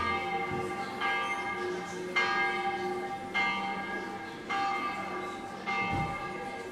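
Church bells ringing in a stone bell tower: six strokes, about one a second, each left ringing on and fading into the next.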